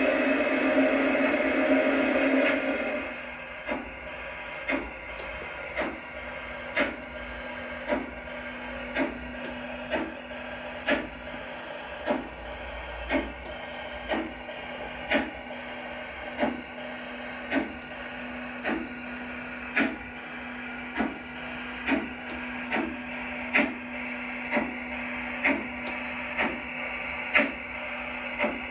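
LGB garden-scale model goods train running slowly: a steady electric motor hum with the wheels clicking on the track about once a second. The sound is louder and fuller for the first three seconds, then settles to the quieter hum and clicks.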